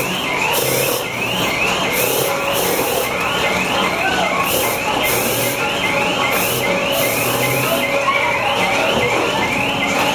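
Mechanical carousel and its rider-operated creatures running: a rising whine repeating about three times a second over a low hum, with short bursts of hiss coming and going.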